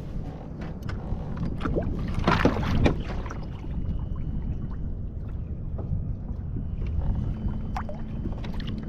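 Wind rumbling on the microphone aboard a fishing kayak, with scattered knocks and handling sounds and a louder rushing burst about two to three seconds in.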